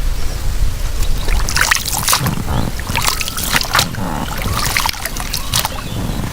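Oars dipping and splashing in river water from a small rowed boat, a stroke every second and a half or so, over a steady low rumble.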